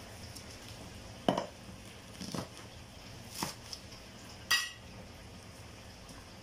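Kitchen knife chopping green onions on a plastic cutting board: four separate knocks about a second apart, the last with a short metallic ring.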